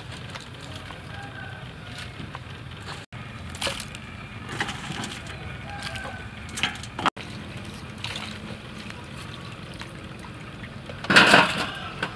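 Live prawns being handled in metal basins: scattered clicks and knocks of shells and claws against the metal, then one loud splash of water in the washing basin about eleven seconds in.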